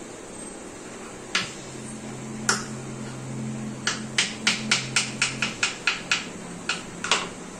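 Knife chopping ridge gourd on a cutting board: a couple of separate cuts, then a quick run of about four chops a second, and two more near the end.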